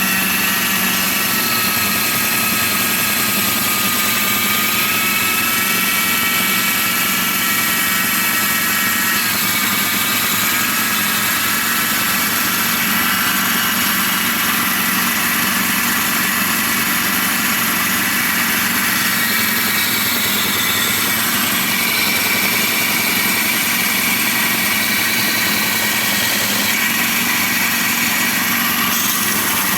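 Homemade belt grinder driven by a washing-machine motor, running steadily: a whine whose pitch wavers slightly, over a hiss.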